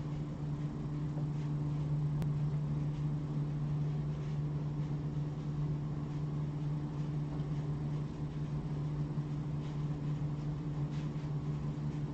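A steady low machine hum, like a fan or appliance motor running, over faint even room noise.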